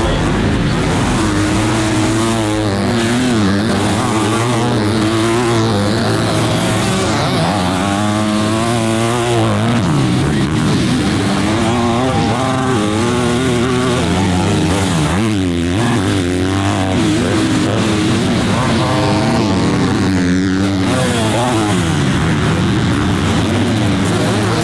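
Motocross bikes racing on the track, their engines revving up and dropping off again and again as they go through the gears.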